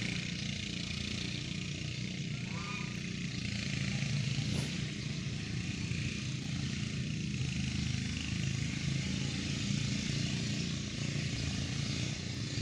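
A steady engine rumble, like a small motor running without a break, with faint voices mixed in.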